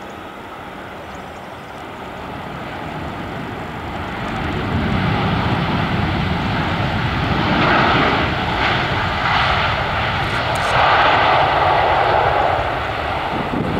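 Boeing 787-8 Dreamliner's Rolls-Royce Trent 1000 jet engines spooling up into reverse thrust just after touchdown. The roar builds from about four seconds in and then stays loud, with slow swells.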